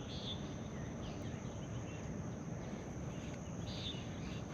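Outdoor ambience: a steady high-pitched insect drone with a few short chirps, over a low rumble of wind on the microphone.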